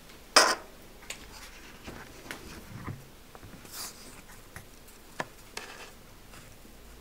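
Handling noise on a workbench: a short, loud rustling knock about half a second in, then scattered light clicks, taps and brief rubs.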